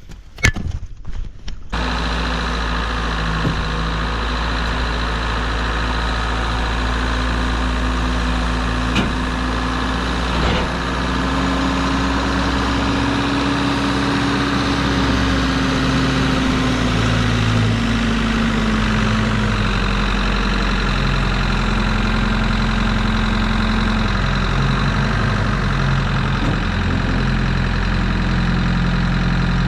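An engine runs steadily at a low, even speed, with a slow rise and fall in pitch around the middle. A few short clicks come just before it settles in.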